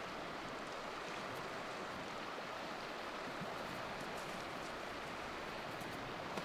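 Strong wind rushing steadily through the forest, an even noise with no single event standing out.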